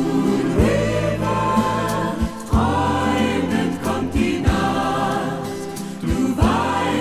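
Easy-listening orchestra music from a 1970s LP, with a choir singing sustained, swelling chords over bass and drum hits.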